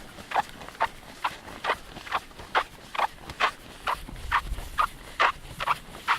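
Squeaking (singing) beach sand giving a short, high squeak each time a foot brushes or presses across it, about two squeaks a second in an even rhythm.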